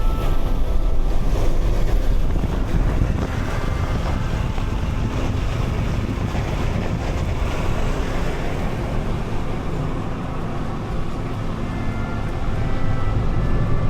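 Steady cabin road noise of a Ford Bronco driving on a snow-covered highway: tyre noise on snow and slush over a low engine rumble.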